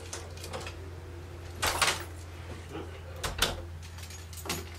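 A door being opened and shut as someone comes into a room, heard as three short knocks and rattles about a second and a half apart over a steady low hum.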